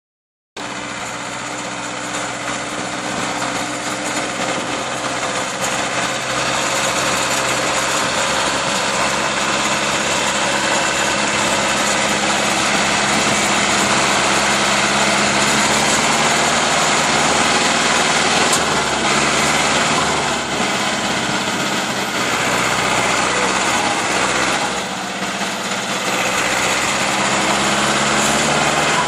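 Zetor tractor's diesel engine running hard as the tractor churns through deep mud. Its note wavers up and down a little, with short dips about two-thirds of the way through.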